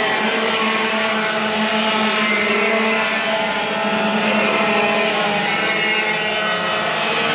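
Several two-stroke racing kart engines running at high revs as the karts race round the track. They make a steady, dense buzz of many overlapping pitches.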